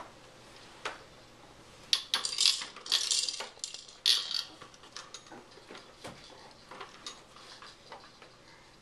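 Hard plastic toys on a baby's activity center clacking and rattling as the baby bats and turns them. There is a dense run of clattering from about two to four and a half seconds in, then scattered light clicks.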